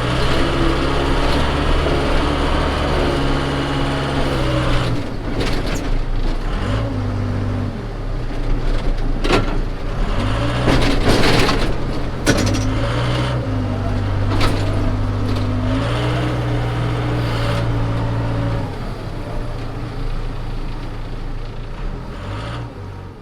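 Case 580 Super K backhoe's diesel engine running under load while pushing snow, revving up and down several times, with a series of sharp knocks and clatters in the middle. The engine sound fades near the end.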